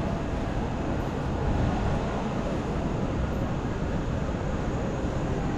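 Steady city street noise with a low traffic rumble, no single sound standing out.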